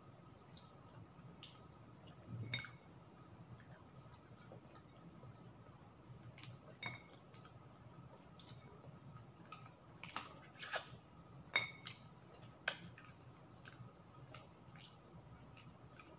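Close-up eating sounds: chicken adobo being chewed and picked off the bone by hand, with scattered wet clicks and smacks of mouth and fingers, several in quick succession about ten to thirteen seconds in.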